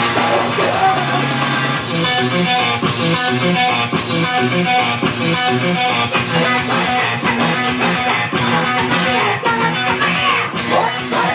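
Loud live band music with electric guitar and bass playing a fast rock song through a PA.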